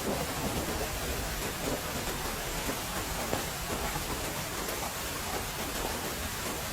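Heavy rain falling steadily, an even hiss with a few faint louder drops.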